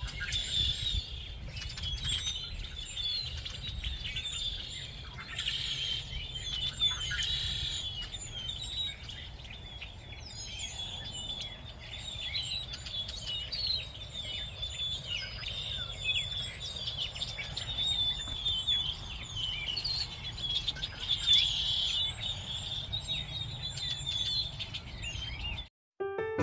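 Many birds chirping and calling at once in a busy, overlapping chorus, over a low rumble. It cuts off suddenly just before the end.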